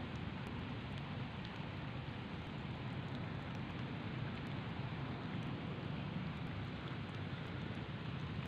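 Steady rushing outdoor background noise, strongest in the low range, with a few faint ticks and no distinct event.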